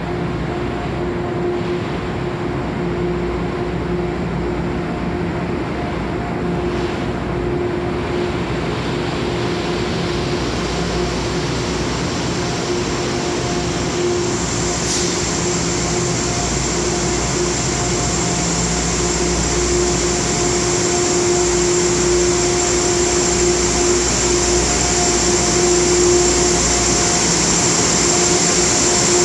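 Amtrak test train of MARC cab cars and Amfleet coaches rolling slowly past a platform in an underground station. The sound is a steady hum and rumble. About halfway through, a high whine comes in and gets louder, and the whole sound grows slowly louder.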